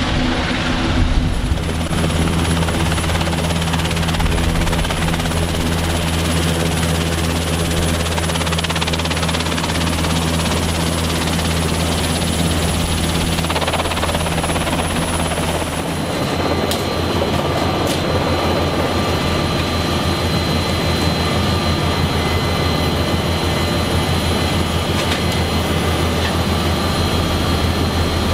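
NH90 transport helicopter running, its rotors and twin turboshaft engines giving a loud steady drone. About sixteen seconds in the sound changes to a rapid low throb with a steady high whine, as heard inside the cabin.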